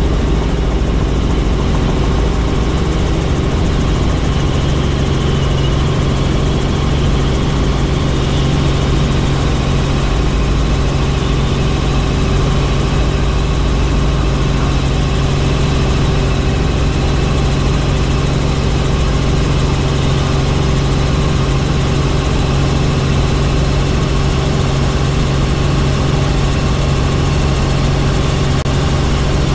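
Helicopter running steadily: a loud, constant engine and rotor drone with a steady low hum.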